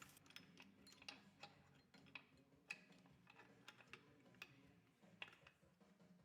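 Faint, irregular light clicks and taps of small metal gearbox parts being handled and set into an open crankcase, as the shift forks are fitted, over a faint low hum.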